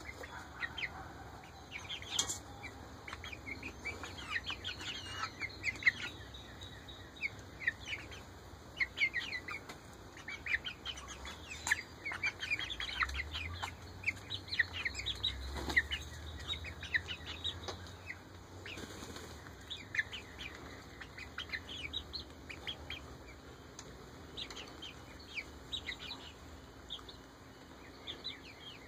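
Eight-week-old Ameraucana chicks peeping and chirping, many short calls in quick, scattered runs, with now and then a brief flutter of wings.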